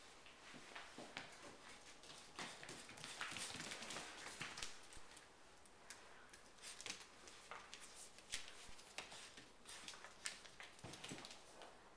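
Faint, irregular clicking and scratching of a puppy's claws on a vinyl floor as it scrambles about playing with a plush rabbit toy, with a denser stretch of scuffling about three to five seconds in.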